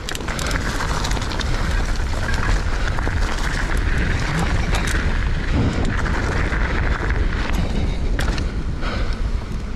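Wind rushing over an action camera's microphone as a mountain bike rolls fast downhill, with tyres crunching and rattling over loose gravel. Later the bike rolls onto smooth pavement.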